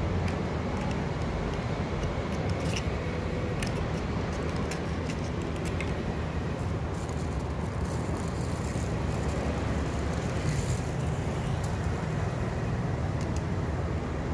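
Steady city street ambience: a constant low rumble of traffic, with scattered faint ticks and clicks.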